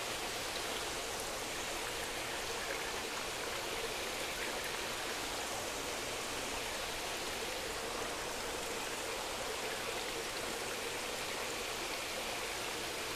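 Steady rush of water flowing in a recirculating fish-tank system, with a faint steady hum underneath.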